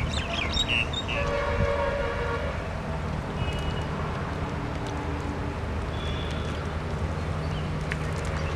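A steady low engine drone, with a brief pitched tone, horn-like, sounding for about a second and a half about a second in.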